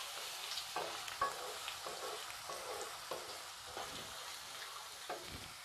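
Masala of ginger-garlic paste and ground spices sizzling in hot oil in a nonstick kadai, with a flat wooden spatula stirring and scraping it in repeated strokes.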